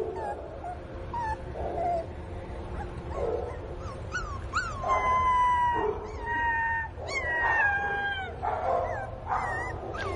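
Black-and-tan puppy crying for its mother: short high yelps, then from about four seconds in two long, high-pitched whines that fall slightly in pitch, followed by more short yelps near the end.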